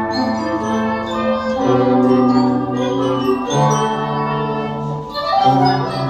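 Band music with sustained chords that change every second or two, with a large marching bass drum (fuzileiro) struck with mallets in time with it.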